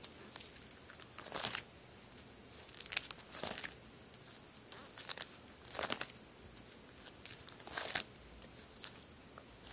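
Clear plastic pocket pages of a card binder rustling and crinkling as they are turned one after another, a short crinkle every second or so.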